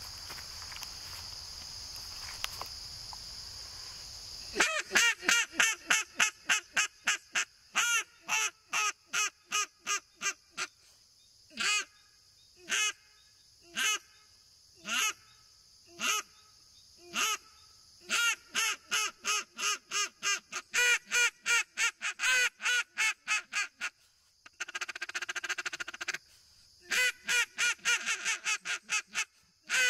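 Weekend Warrior duck call blown in quacks: fast strings of short quacks, then single quacks about a second apart, one longer note about two-thirds through, and more fast strings near the end. Insects hiss steadily behind, heard alone for the first few seconds.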